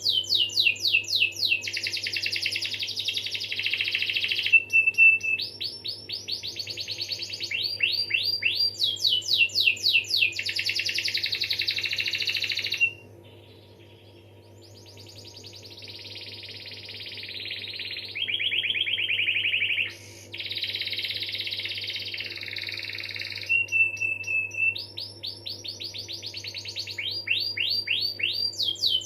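Domestic canary singing a long rolling song of rapid repeated trills and sweeping notes in phrases, with a brief lull about halfway through. A faint steady low hum lies underneath.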